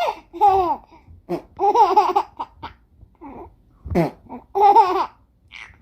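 A four-month-old baby laughing and squealing in several short bursts, the pitch wavering up and down.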